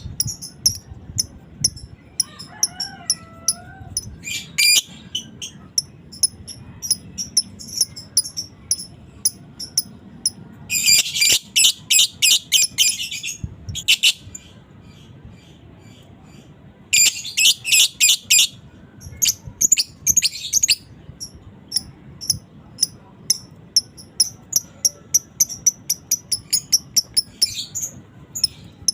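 Lovebird chattering: a run of sharp, high chirps about three a second, broken twice by a dense rapid trill lasting a couple of seconds. This is the long 'ngekek' chatter of a fighter lovebird, used as a bait call to set other lovebirds chattering in reply.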